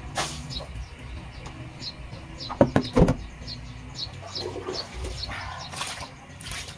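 A bird chirping over and over, a short high call about twice a second. About two and a half seconds in comes a quick clatter of three sharp knocks.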